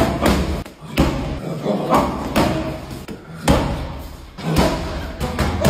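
Boxing gloves punching a trainer's strike pads: a series of heavy, booming smacks about a second apart.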